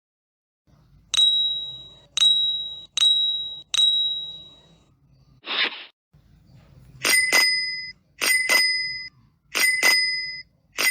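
Bell-ring sound effects: four single metallic dings about a second apart, each ringing on. Then a short hiss, then a brighter bell struck twice in quick succession, four times over.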